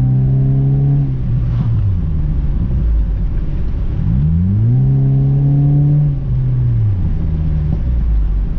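Honda Civic four-cylinder engine through a Skunk2 Mega Power cat-back exhaust, accelerating hard twice. Each time the revs climb, hold for a second or two, then fall away as the throttle is lifted, and the engine settles to a lower steady run near the end.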